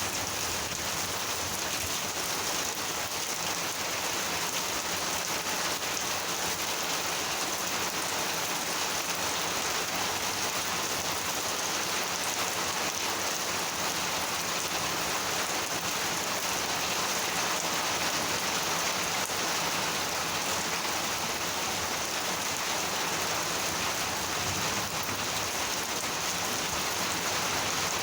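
Steady heavy monsoon rain falling and pattering on surfaces, an even unbroken hiss.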